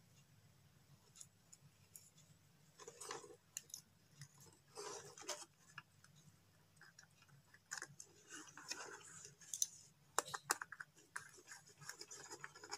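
Faint, scattered clicks and scrapes of wires being handled and a screwdriver turning the brass terminal screws of a switch board, as a wire is fastened under a terminal.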